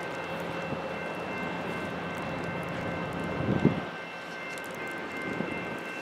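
Approaching EMD GP40WH-2 diesel locomotive running, its engine and train noise steady as it draws nearer, with a brief low thump about three and a half seconds in.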